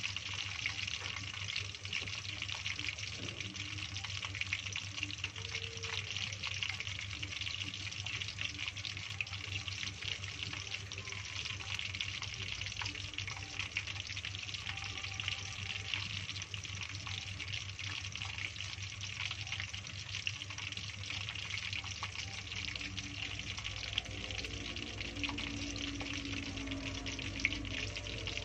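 Hot oil sizzling and crackling steadily as pandan-leaf-wrapped bundles of instant noodles deep-fry.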